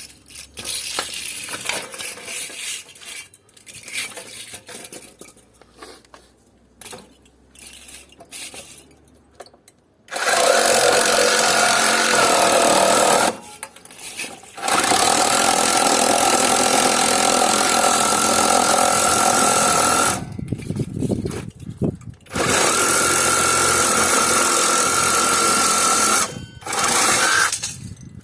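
A few seconds of metal parts clattering and being handled, then a reciprocating (sabre) saw cutting through an air conditioner's metal in three long runs of several seconds with short pauses between, and a brief burst near the end.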